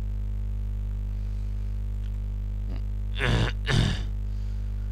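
Steady electrical mains hum in the recording, with a brief vocal sound about three seconds in.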